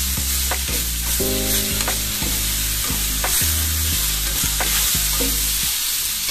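Sliced shiitake mushrooms sizzling in oil in a nonstick frying pan while a spatula stirs them, scraping and tapping against the pan about twice a second.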